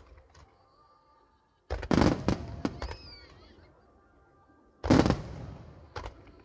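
Aerial fireworks shells bursting in the finale: two loud volleys of sharp bangs about three seconds apart, each trailing off in a rumbling echo, then a smaller single bang near the end.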